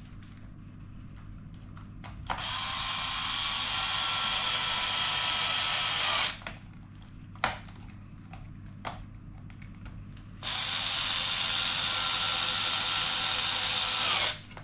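Electric screwdriver running twice, about four seconds each time, driving small screws back down into an RC car's receiver box cover. Each run is a steady motor whine that bends in pitch as it stops, with a few small clicks in the gap between.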